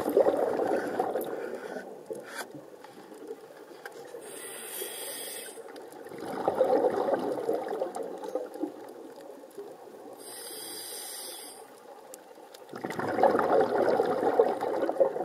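Scuba diver breathing through a regulator underwater: a short hiss on each inhale, then a louder bubbling burst of exhaled air, repeating about every six seconds. The bubbling exhalations, three of them, are the loudest sounds.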